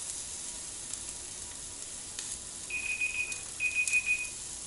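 T-bone steak sizzling steadily on a Philips Indoor Smokeless Grill, with scattered small crackles. About three seconds in, a timer beeps in two short bursts of rapid high beeps: the six minutes on the first side are up and it is time to flip.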